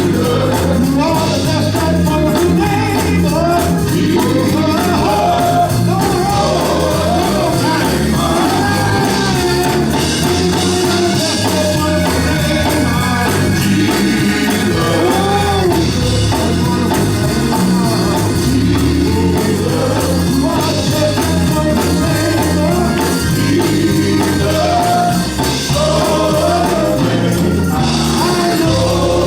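Gospel worship music: voices singing over a band, steady and loud throughout.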